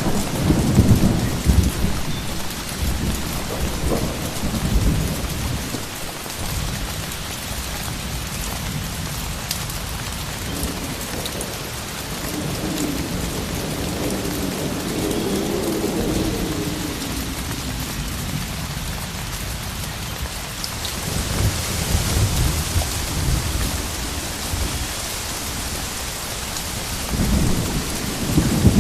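Steady rain with wind, a continuous hiss of falling rain. Deep rumbles rise in the first few seconds and again near the end, and a softer swell comes through around the middle.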